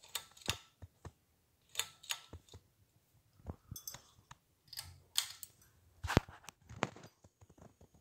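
A string of irregular clicks and taps from working the pull chain of a Progress Lighting AirPro ceiling fan, with the chain and switch clicking as the fan is switched on and starts to turn.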